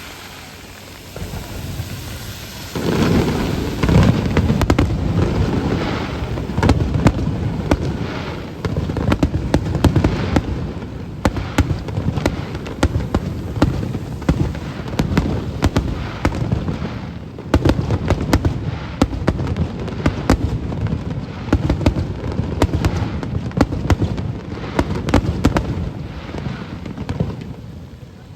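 Aerial fireworks display: a dense barrage of booming shell bursts and crackles, picking up sharply about three seconds in and going on without a break until near the end.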